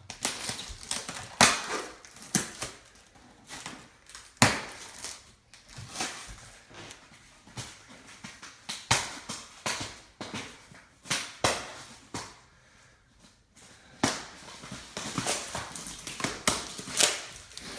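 Packing tape being ripped off a cardboard box: an irregular run of short, sharp rips and crinkles with brief pauses between them.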